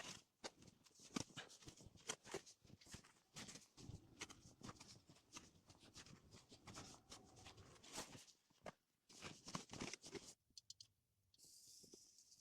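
Faint, irregular crunching and clicking that stops about ten seconds in, followed near the end by a faint high hiss.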